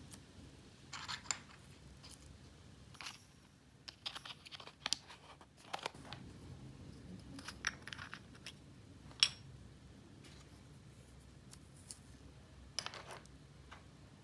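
Small plastic clicks, taps and short rustles as small clear plastic jars of tiny beads are picked up and handled, the loudest a sharp click about nine seconds in.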